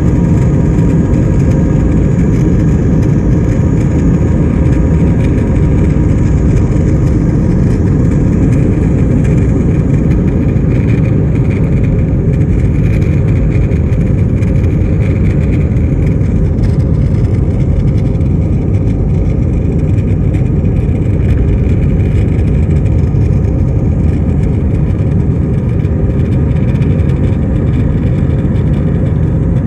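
Steady engine and air noise inside a jet airliner's cabin, loud and unchanging, heaviest in the low end.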